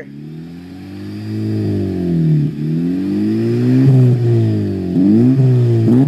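2009 Honda Accord Coupe's four-cylinder engine revved through a Greddy Racing Ti-C titanium cat-back exhaust. The revs climb and fall over the first few seconds, then come in shorter, quicker blips near the end.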